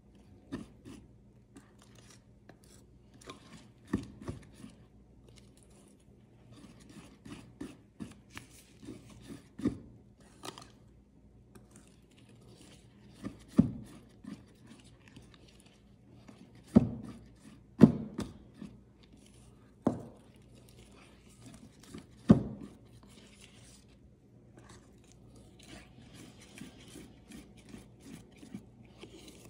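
Rice-flour batter being stirred by hand in a mixing bowl: a utensil scraping and rubbing around the bowl, with scattered sharper knocks of the utensil against the bowl's side.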